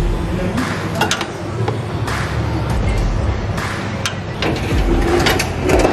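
Background music with a low bass line, with several sharp clicks over it.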